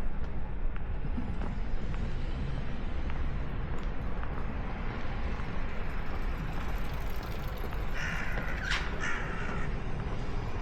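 A crow cawing several times in quick succession near the end, over steady outdoor background noise.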